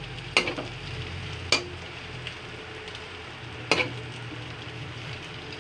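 Shredded cabbage and carrots frying in a wok with a steady sizzle. Three sharp knocks sound through it, about half a second, a second and a half, and nearly four seconds in.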